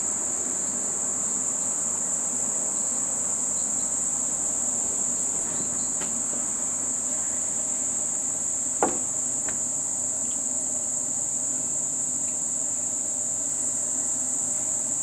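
Steady, high-pitched chorus of insects chirring without a break, with one sharp click or knock a little before the middle.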